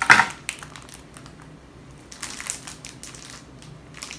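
A plush dog toy with a crinkle insert crinkling and rustling as it is handled, loudest in a burst right at the start and again about two seconds in, with scissors snipping the plastic tag fasteners that hold it.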